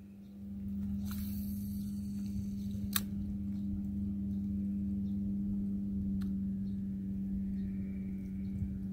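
A steady low hum, like a distant motor, comes up about half a second in and holds. Over it, a spinning rod is cast: a hiss of line paying out for about two seconds, ending in a sharp click near three seconds in, with another click a few seconds later.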